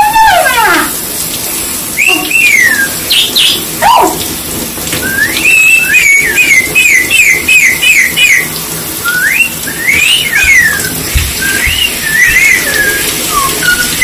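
Whistled glides rising and falling, a few at a time, with a quick run of about eight notes near the middle, over the steady hiss of running shower water.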